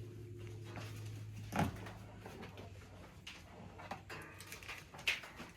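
Hands working the animatronic's wiring: scattered plastic clicks and rustling from connectors and cables. There is one sharp knock about a second and a half in, and a low steady hum fades out about halfway.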